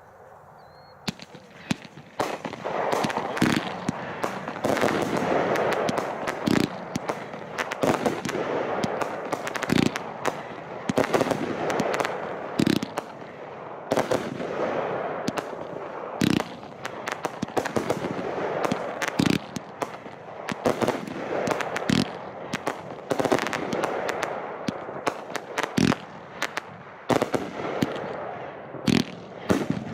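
Fireworks barrage going off: a dense, continuous crackle with sharp bangs several times a second, starting about two seconds in.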